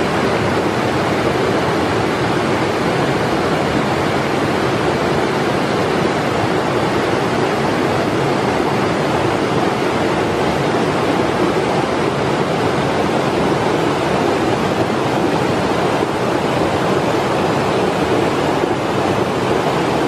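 Small waterfall's water rushing over rocks, a steady unbroken noise.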